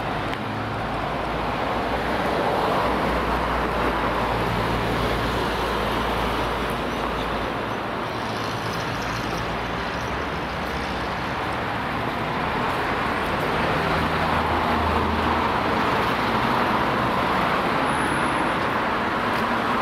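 Steady road traffic on a city street, cars and heavier vehicles passing with a low engine drone that swells a couple of seconds in and again past the middle.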